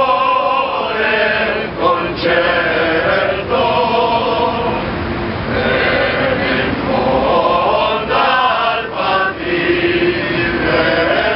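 A men's choir of Alpini veterans singing a song together, unaccompanied, in phrases of long held notes.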